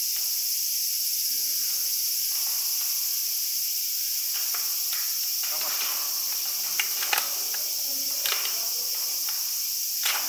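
Steady, high-pitched drone of a chorus of insects, with a few short sharp clicks about seven and eight seconds in and again near the end.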